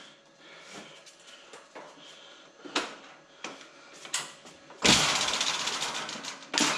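Dell PowerEdge R710 server chassis and its steel sliding rack rails knocking and clicking as the server is set onto the extended rails. About five seconds in comes a metal scrape of about a second and a half, fading out, as the chassis slides on the rails.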